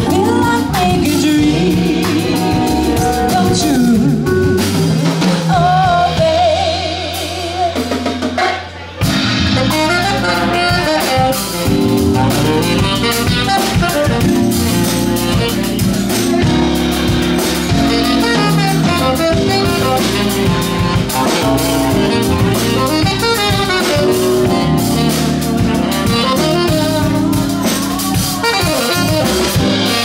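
Live jazz band playing an instrumental passage. The band thins out for about two seconds around seven seconds in, then comes back in full.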